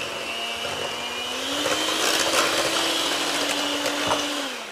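Electric hand mixer running, its beaters whipping wet cookie batter in a glass bowl, with a few clicks of the beaters against the glass. The motor steps up in speed about a second and a half in and winds down near the end.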